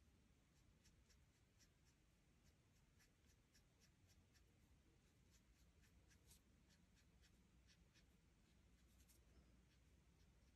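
Very faint scratching of a Stampin' Blends alcohol marker's brush tip on cardstock as sunflowers are coloured, in many short, irregular strokes.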